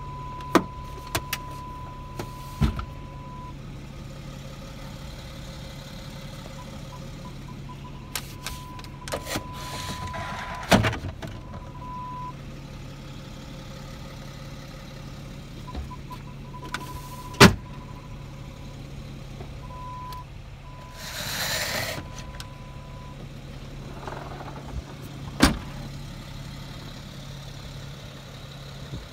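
BMW X5 3.0sd twin-turbo straight-six diesel idling steadily. Over it, an electronic warning beep sounds on and off, with several sharp knocks and clicks from the boot's load cover and tailgate being handled, and a brief whirring whoosh about two-thirds of the way through.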